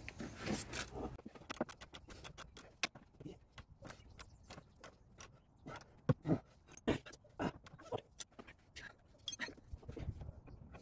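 Irregular metallic clicks, clinks and knocks of hand tools and a bolt being handled during suspension work on a car, with several louder knocks in the middle.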